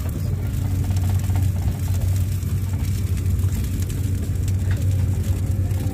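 Steady low rumble of a Eurostar high-speed train running at speed, heard inside the carriage.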